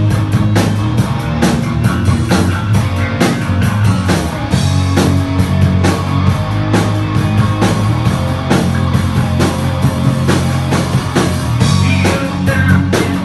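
Live rock band playing: electric guitars and bass over a drum kit keeping a steady, driving beat.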